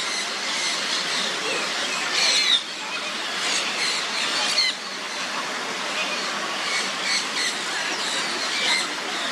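Birds calling: short, high squeaky calls in irregular bursts over a steady hiss.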